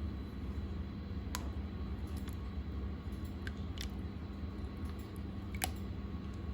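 Slime being handled by hand, giving a few short sticky clicks and squishes over a steady low hum.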